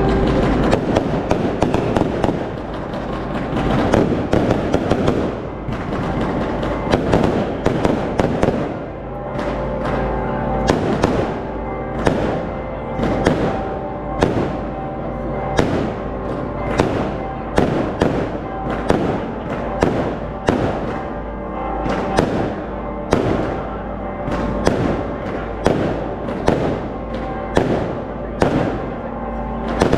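Fireworks at a Maltese village festa going off in a long run of sharp bangs. They are dense at first, then settle from about nine seconds in into a regular beat of one to two bangs a second, with music playing underneath.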